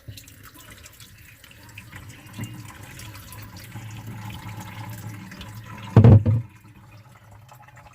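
Boiling water being poured into a freezer's ice-clogged drain duct, running and trickling as it thaws the ice. A short loud thump comes about six seconds in.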